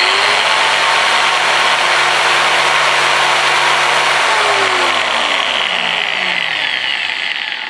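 180 mm angle grinder switched straight on with no soft starter, jumping up to full speed, which draws a starting current far above 5 A. It runs at a steady loud whine, then is switched off about four seconds in and winds down with a falling whine.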